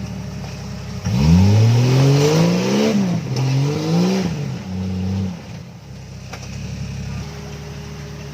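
Off-road vehicle's engine revved up hard about a second in, easing off and revving a second time, then dropping back to a lower, steadier running.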